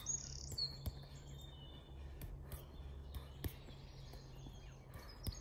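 Irregular soft taps of a football being rolled and touched with the boot, over a low steady hum, with a few faint bird chirps near the start.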